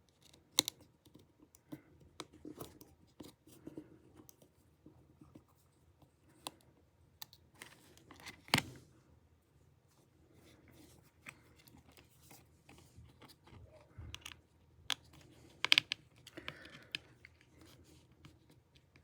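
Small repair tools clicking, tapping and scraping on the parts inside an iPhone 7 while the camera bracket is being unscrewed. The clicks are scattered and light, with a few sharper ones about eight and a half seconds in and again near sixteen seconds.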